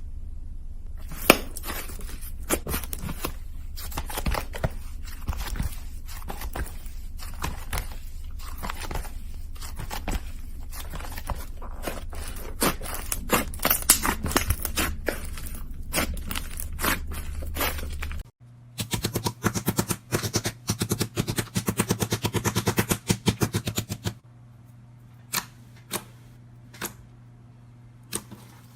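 Slime being pressed and worked by hand, giving rapid crackling clicks and pops. About 18 seconds in it changes to a denser run of crackles, then to a few separate pops.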